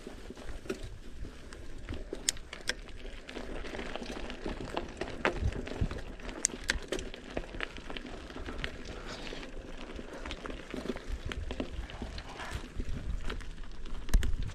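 Mountain bike rolling over a rocky dirt trail: tyres crunching on loose stones and the bike rattling, with frequent sharp clicks and knocks from the bumps.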